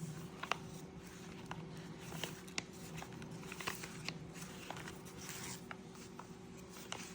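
Light handling sounds, scattered small clicks and rustles, over a steady low hum.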